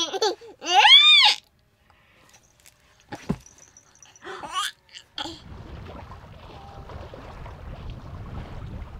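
A baby's loud, high squeal that rises and falls in pitch in the first second or so, then a few quieter short baby sounds. From about five seconds in, a steady low rushing noise takes over.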